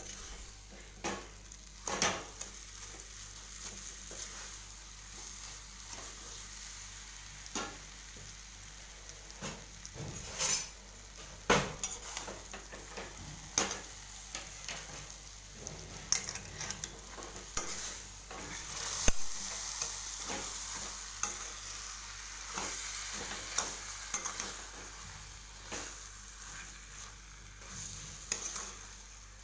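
Puran, a mash of chana dal, ghee, jaggery and sugar, sizzling steadily in a metal kadhai as the jaggery and sugar melt into it. A spatula stirs it, with scattered scrapes and knocks against the pan.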